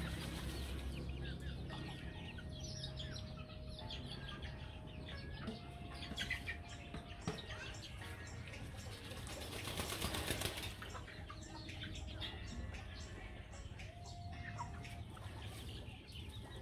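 A flock of young chickens moving about on dirt, pecking and scratching, with soft calls, a few long level calls and a brief rush of flapping wings about ten seconds in.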